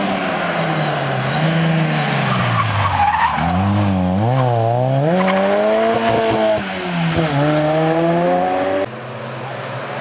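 Ford Sierra RS Cosworth rally car's engine taking a hairpin: the pitch falls as it slows for the bend, wavers with throttle blips, then climbs through the gears as it accelerates away, with a brief tyre squeal about three seconds in. The sound cuts off abruptly near the end, leaving a fainter engine in the distance.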